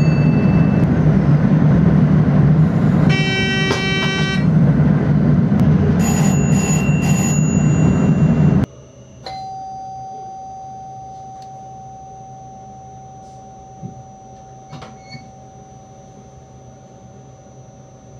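Train driver's cab with the train running, loud rolling rumble, and a ringing electronic cab chime about three seconds in, followed by short high beeps around six seconds. About eight and a half seconds in, the sound cuts to a much quieter standing cab with a steady electrical tone and a few faint clicks.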